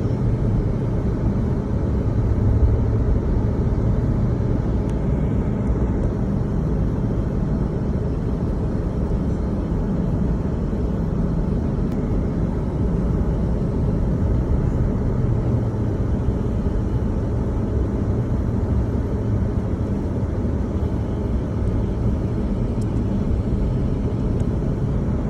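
A car being driven: a steady low rumble of engine and tyre noise.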